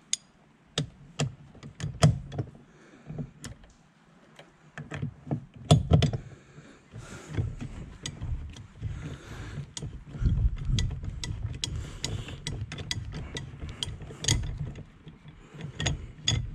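Ratchet clicking in uneven runs as a hex socket backs out the steering wheel's centre bolt, with rubbing and handling noise of the tool from about ten seconds in.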